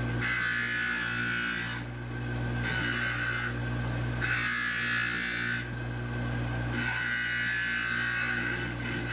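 Dental model trimmer running with a steady motor hum, as a gypsum stone model section is pressed against its abrasive wheel in four grinding passes of a second or two each.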